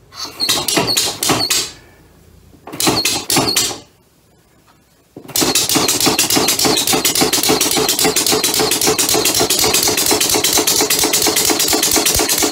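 Homemade two-cylinder compressed-air engine fed from a hand-held air valve. It gives two short bursts of rapid puffing and stalls each time, then about five seconds in catches and runs steadily with fast, even exhaust puffs. Both cylinders are not working together properly, which the builder puts down to a timing problem.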